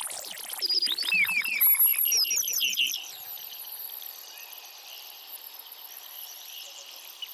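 Jungle ambience: a dense flurry of rapid, repeated bird-like chirps for the first three seconds or so, then a quieter, steady insect-like hiss with a few faint calls.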